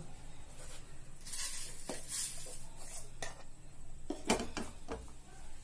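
Wooden spatula stirring and scraping curry leaves as they dry-roast crisp in a metal kadai: a dry rustling scrape with a few sharp knocks of the spatula against the pan.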